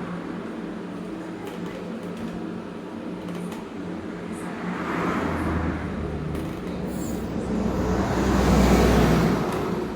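Road vehicles passing over a steady mechanical hum: one swells about five seconds in, and a louder one peaks near the end and fades away.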